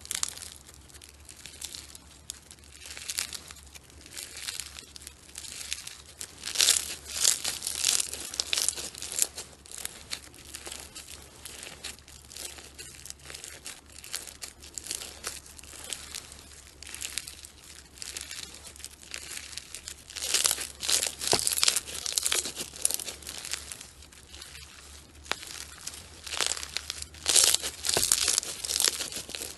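Bead-filled slime squeezed and pulled apart by hand, the packed beads giving a dense crackling that swells in louder bursts about a quarter of the way in, about two-thirds in and near the end.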